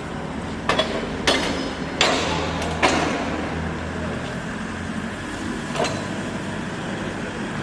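Knocks and clatters from brick-making work, about five in the first three seconds and one more near six seconds, over a steady low machine hum.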